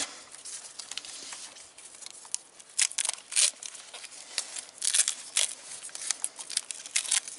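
Layers of blue and yellow tape being peeled and unwound from a motorcycle wiring harness: short, irregular crinkling and tearing rustles.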